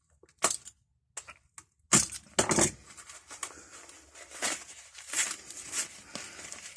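Packaging being torn open and crumpled by hand, irregular sharp crackles and rustles, loudest about two seconds in.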